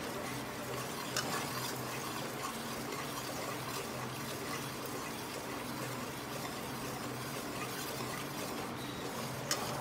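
Whole wheat flour frying in ghee in an aluminium kadai, a steady low sizzle, while a metal ladle stirs and scrapes through it, with a light clink or two. The flour is nearly roasted and is starting to release its ghee.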